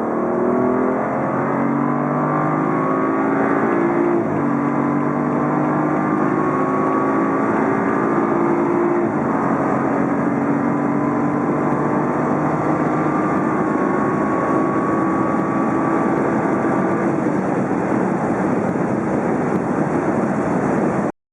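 Stock exhaust of a BMW 335i xDrive (F30) with its turbocharged 3.0-litre straight-six under acceleration. The engine note climbs in pitch and drops sharply twice, about four and about nine seconds in, as with upshifts. It then rises slowly until a more even rushing sound takes over, and cuts off abruptly near the end.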